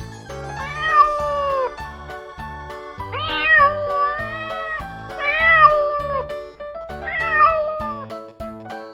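Domestic cat meowing four times, each a long drawn-out meow that falls in pitch at the end, over background music.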